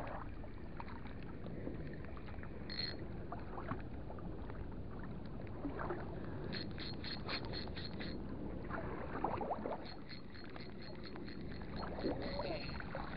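Steady wind and water noise along a harbour wall. Two runs of quick, even ticks, about five a second, come a few seconds apart: the first is clearer, the second fainter.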